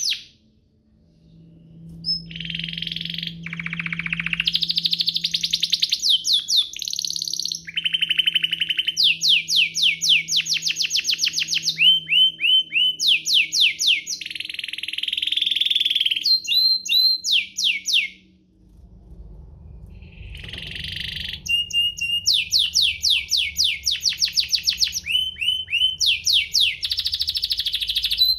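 Domestic canary singing a long, loud song of fast trills and rapidly repeated rolling phrases. There are brief pauses about a second in and again around eighteen seconds in.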